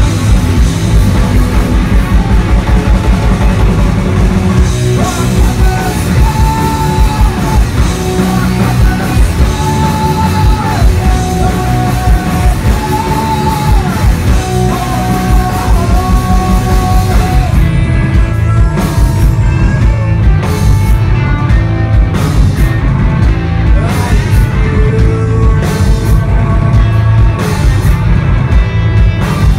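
Rock band playing live and loud: electric guitars, bass guitar and drums with singing. A melody of long held notes runs through the first half, and about eighteen seconds in the cymbals drop away and the sound thins out.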